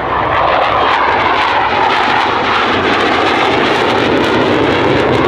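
Saab JAS 39C Gripen fighter jet flying a low display pass: loud, steady jet noise from its single Volvo RM12 turbofan, with a crackle in the high end.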